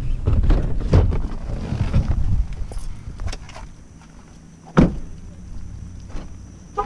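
Someone getting out of an SUV: low rumble and small clicks and knocks from the cab, then the door shut with one sharp thud a little under five seconds in, followed by faint light steps.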